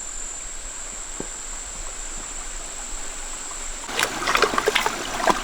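A stream running and trickling, with closer splashing and gurgling water starting about four seconds in.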